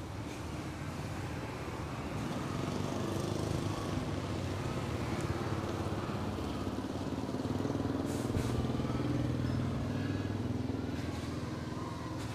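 A motor vehicle engine running, its hum growing louder over several seconds and then easing off, as of passing road traffic.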